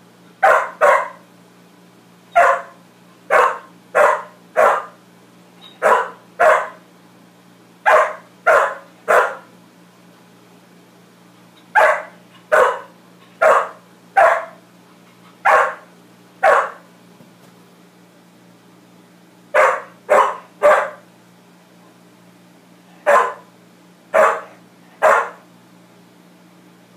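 A poodle barking at its own reflection: about two dozen short, sharp barks in bursts of one to four with pauses between. A faint steady low hum runs underneath.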